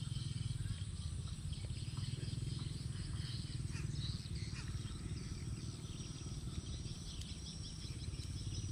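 Swamp ambience: a steady high-pitched insect drone with chirping calls, over a low rumble that eases about four seconds in.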